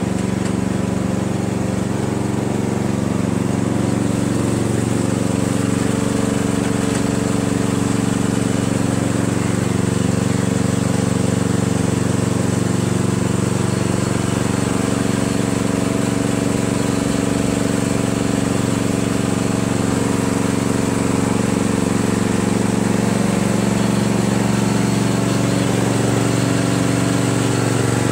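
Riding mower's small engine running at a steady speed.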